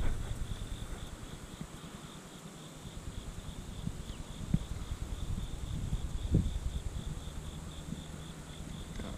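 Insects chirring steadily in the grass, a high, rapidly pulsing buzz, over a low rumble, with a few faint knocks about halfway through.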